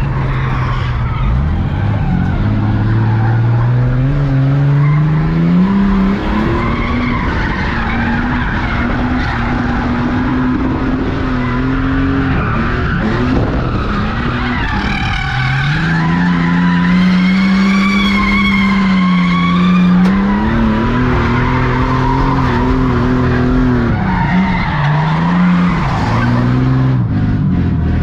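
Ford Falcon drift car's engine revving hard, its note climbing, held high for long stretches and dipping several times, while the tyres squeal and skid through a drift. The engine drops back to a lower note near the end.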